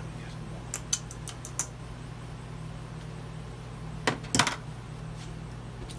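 Small metal parts and tools clinking as they are handled during a trolling motor teardown: a quick run of light clicks about a second in, then a louder clatter around four seconds in.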